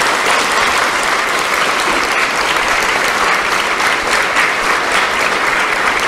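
Audience applauding steadily: a dense, even clapping of many hands.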